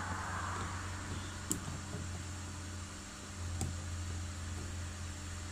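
Steady low hum and hiss of room noise, with two light, sharp clicks about a second and a half and three and a half seconds in as an embroidery needle picks beads from a plastic plate.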